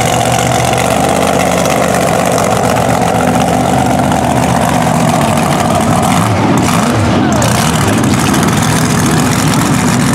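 Mega mud truck engine running as the truck rolls slowly at low throttle, its pitch rising and falling a little around the middle.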